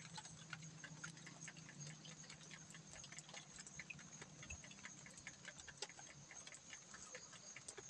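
Near silence: faint, scattered small clicks and ticks over a faint, steady high-pitched hum.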